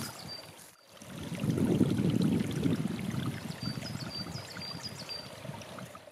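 Footsteps crunching and rustling through dry leaf litter on a forest path, a dense crackle of small clicks that swells about a second in. A small bird chirps a quick run of short high notes in the background near the middle.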